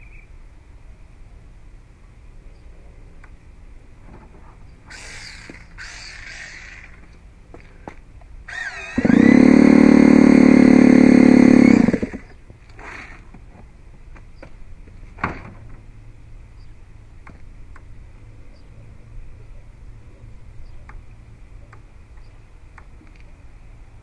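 DLE-35RA single-cylinder two-stroke gas engine on a test stand, running quietly at idle, then revved up about nine seconds in to a steady, very loud full-throttle run lasting about three seconds before dropping back to idle.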